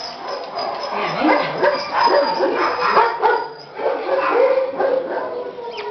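A litter of puppies yipping and whining, several voices overlapping.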